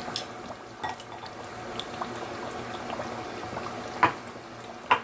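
Nigerian tomato stew simmering and bubbling in a pot, with a few sharp clinks against the pot as the beef and bones go in. The two loudest clinks come about four seconds in and just before the end.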